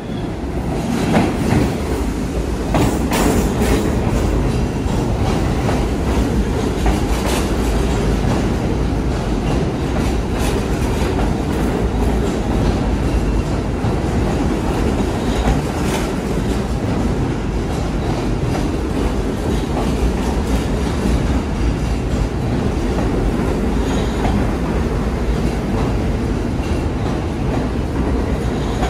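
R68 subway train running past close by along the platform: a steady loud rumble of steel wheels on rail, with a cluster of sharp wheel clicks over rail joints in the first few seconds and scattered clicks after.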